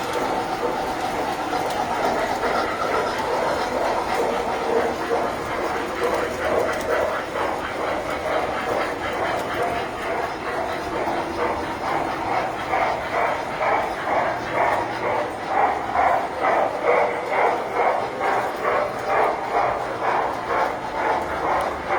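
Tinplate model train running on its track, the metal wheels clattering steadily. About halfway through, a regular rhythmic beat of roughly one and a half pulses a second becomes prominent.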